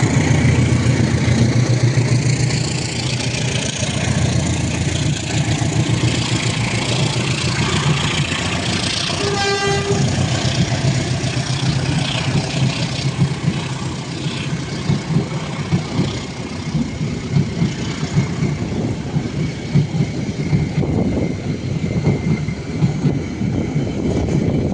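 Diesel train passing close by: a low engine throb at first, one short horn toot about nine seconds in, then the rumble and irregular clatter of the train running past.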